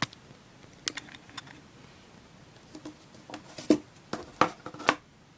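Plastic parts of a Kobo Glo e-reader being handled on a table: a series of light clicks and taps, a few at first, then a quicker cluster of knocks near the end.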